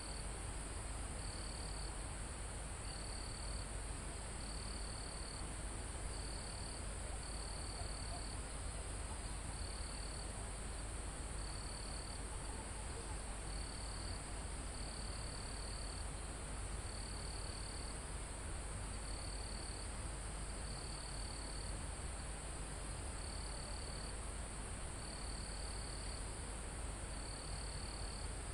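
Insects and crickets in a mountain forest: a continuous high buzzing drone, and a cricket chirping in short trills about every second and a half, over a steady low rumble.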